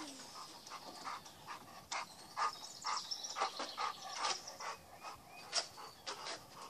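A dog barking, a run of short barks at an irregular pace.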